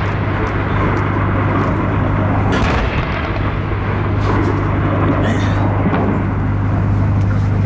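Steady low hum under a continuous noisy rumble at a live-fire range, with a few faint sharp reports of distant gunfire spread through it.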